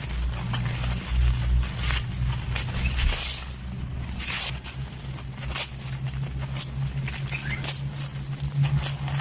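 Dry sand-cement chunks being crushed and crumbling: a run of irregular crisp crunches and crackles, over a low steady hum.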